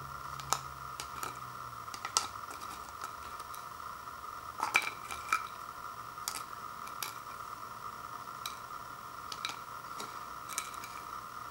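Light, irregular clicks and taps as dried wontons and fingertips knock against a ceramic plate, with the loudest cluster near the middle.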